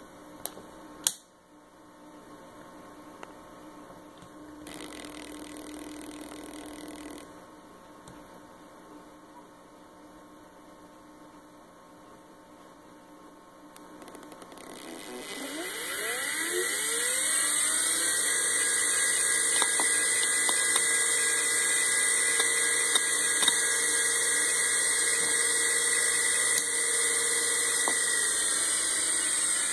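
Quantum ProDrive Empire Series 1 GB 5400 RPM SCSI hard drive spinning up. A couple of sharp clicks come in the first second and a faint hum follows. About 14 seconds in, the spindle motor starts with a rising whine that levels off around 18 seconds into a steady high whine and hiss as the platters reach full speed.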